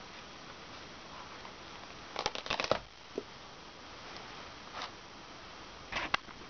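Worn denim jeans being handled and shifted over a concrete floor: short runs of crackling, scuffing clicks about two seconds in, once briefly near five seconds, and again near the end.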